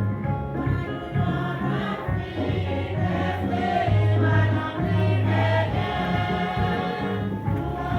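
Music with a choir singing over instrumental accompaniment, with strong held bass notes.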